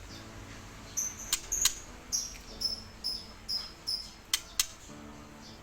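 Young white-rumped shama giving a run of about eight short, high-pitched chirps, each sliding slightly down in pitch. A few sharp clicks come in among them, two near the start of the run and two near its end.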